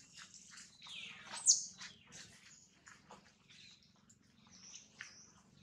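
High-pitched animal calls: scattered short chirps and squeaks, with one loud falling squeal about a second and a half in.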